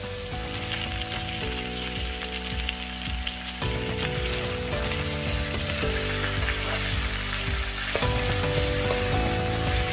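Chicken breasts and stir-fried vegetables sizzling in a hot pan, turned now and then with a wooden spatula, under background music of held chords.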